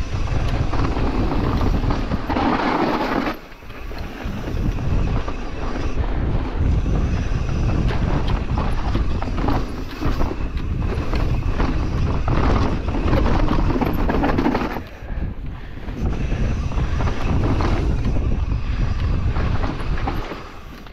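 Mountain bike running fast down a dirt enduro trail: tyres rumbling over the ground with the bike rattling. The noise dips briefly twice and falls away near the end.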